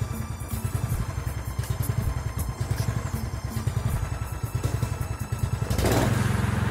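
Petrol walk-behind lawn mower engine running slowly with close, uneven firing pulses, then speeding up about six seconds in and settling into a steady, even run.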